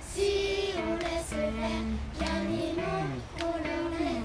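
A song playing: a voice singing long held notes in short phrases over a steady low bass.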